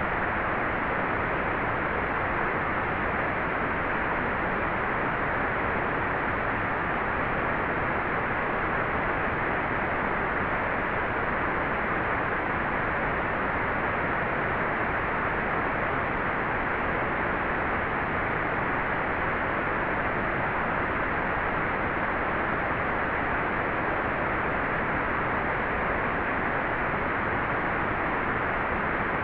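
Hair dryer running steadily: an even, unbroken rushing noise that is strongest in the middle range and soft in the highs. It does not change in pitch or level.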